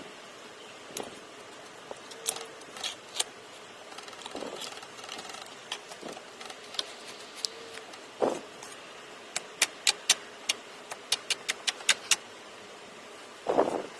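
Slime and its plastic tubs being handled: scattered sharp clicks and pops, with a quick run of them about ten seconds in and a soft thud near the end.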